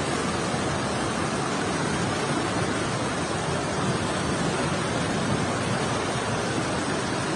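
Fast-flowing floodwater rushing in a steady, even wash of noise, with no breaks or distinct splashes.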